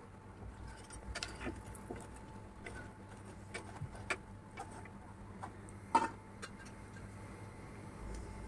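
Faint crackling and ticking of puris deep-frying in medium-hot oil in a pan, with one sharper knock about six seconds in as the slotted spoon touches the pan.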